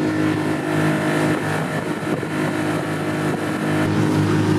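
Small rigid inflatable boat's engine running steadily underway, with wind and water rushing past the hull.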